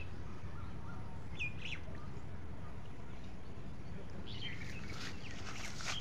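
A few short bird chirps, about a second and a half in and again near the end, over a steady low background rumble.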